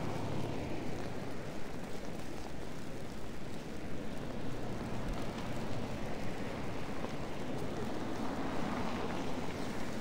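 City street ambience: a steady wash of traffic noise from cars driving on a snow-covered road.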